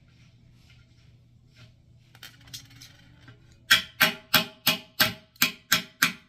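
A rapid run of about nine sharp ringing knocks, about three a second, starting a little past halfway, after some faint ticking.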